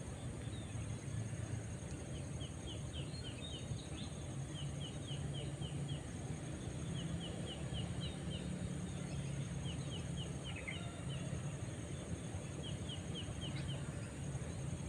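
A bird calling in repeated runs of five or six short, quick downward chirps, the runs a couple of seconds apart, over a steady low rumble and a steady high whine.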